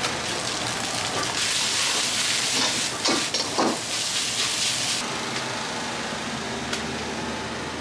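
Fried rice sizzling loudly in a wok over a gas burner, with a few knocks of the metal ladle against the wok, for about three and a half seconds starting a second and a half in. A steady roar of the kitchen's gas burners runs underneath.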